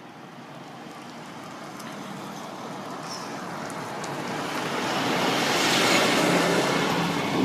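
A road vehicle approaching and passing close by, its tyre and engine noise swelling steadily to a peak about six seconds in, then beginning to fade.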